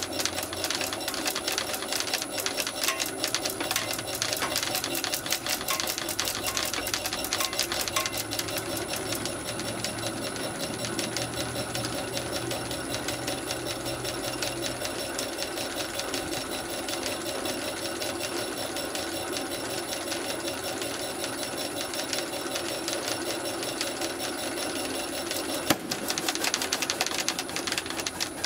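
High-pressure water pump running with a fast, steady mechanical clatter while it pressurises a plastic bottle. A single sharp bang comes about two seconds before the end, and the clatter carries on after it.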